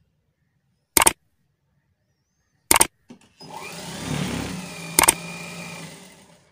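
Sound effects of a like-and-subscribe button animation: three sharp mouse clicks, about a second in, near the three-second mark and about five seconds in. A whooshing swell of about three seconds starts after the second click and peaks before the third, with a short ringing tone at the third click.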